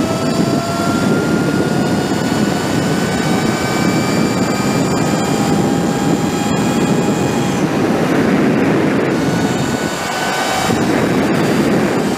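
Sur Ron electric dirt bike's motor and drivetrain whining under way, the whine climbing slowly in pitch as the bike gathers speed, dipping briefly about ten seconds in and then climbing again. Over it runs a heavy rush of wind and road noise.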